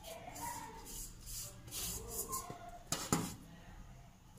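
Hand patting rice-flour dough into a newspaper-lined steel steamer pot: soft rubbing and paper rustling, with two light knocks about three seconds in.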